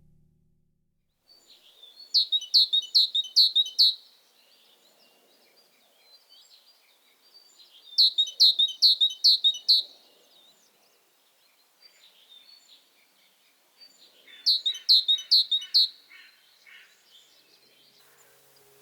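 A songbird singing: three short phrases of rapid repeated high notes, each a couple of seconds long and several seconds apart, with faint chirps between.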